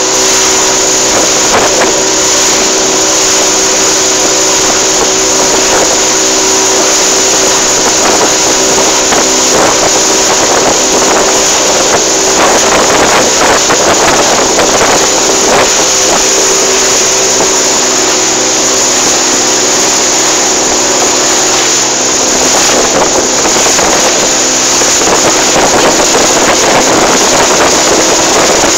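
Fishing boat's engine running steadily under way, with a hum of several even tones over the rush of water and wind buffeting the microphone.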